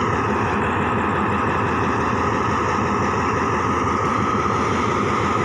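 Diesel locomotive of a stopped passenger train idling close by: a steady, even engine hum.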